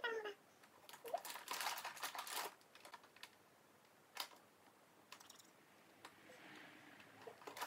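Faint rustling and scratchy clicking of a blanket as a small pet moves about on it, thickest in a cluster of quick clicks in the first few seconds, with one lone click in the middle.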